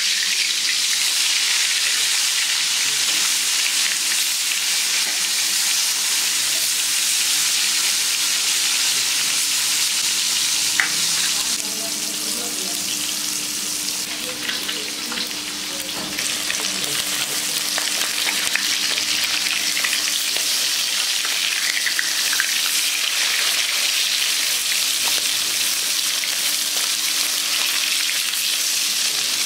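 Pieces of shol (snakehead) fish frying in hot oil in a karai: a steady, dense sizzle with occasional small pops, easing slightly around the middle.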